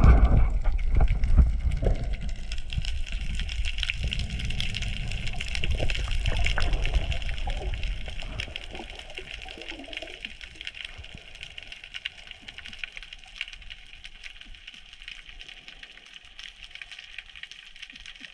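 Seawater splashing and bubbling loudly around the camera as it goes into the sea. About eight seconds in it gives way to a quieter underwater hiss, full of fine crackling.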